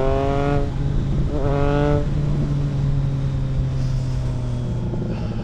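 Triumph Trident 660's inline three-cylinder engine running through a home-built custom exhaust while riding. The revs climb in pitch, break off about a second in, and climb again briefly. The engine then holds a steady, slowly falling note for about three seconds.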